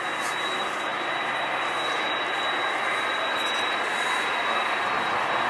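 Jet aircraft engines running, a steady noise that slowly grows louder, with a thin steady high whine over it.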